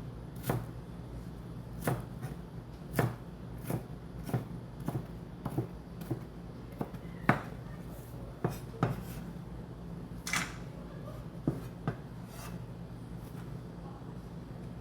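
Vegetables being cut on a cutting board: sharp, irregular knocks about every half second to second and a half, over a low steady hum.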